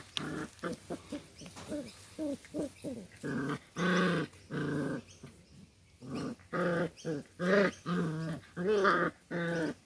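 Seven-week-old Doberman puppies play-fighting, giving a quick run of short pitched play growls, with a few longer calls about four seconds in and again near the end.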